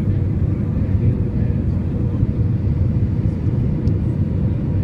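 Airbus A320 cabin noise in flight: the steady low rumble of the engines and rushing air, heard from inside the cabin, with a faint steady hum above it.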